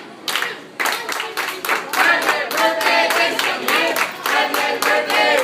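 Group hand clapping in a steady rhythm, about three to four claps a second, with several voices chanting a cheer in time with it.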